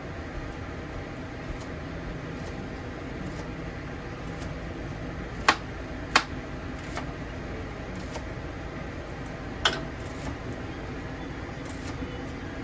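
Steady kitchen background hum with a few sharp clinks or knocks of utensils or dishes: two in quick succession about halfway through and one more a few seconds later.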